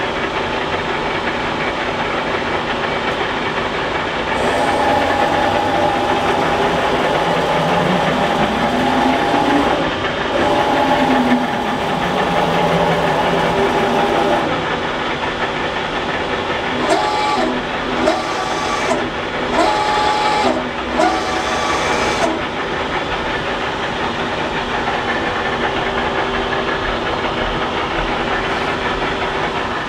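Bridgeport EZ Path CNC flat-bed lathe running, with a steady hiss. From about four seconds in, its motors whine, rising and falling in pitch for about ten seconds. Later comes a string of short stepped tones as the machine moves in brief steps.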